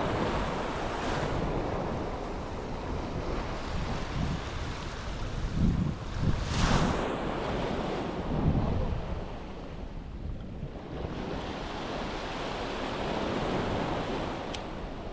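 Sea waves washing onto a beach, the surf swelling roughly every six or seven seconds. Wind buffets the microphone with low rumbling gusts around the middle.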